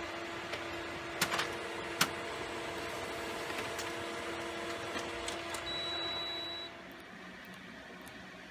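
Canon ImageClass MF634CDW colour laser printer running as it prints a page: a steady motor hum with two sharp clicks of the paper mechanism early in the run. A brief high tone follows, and then the running noise drops off about seven seconds in.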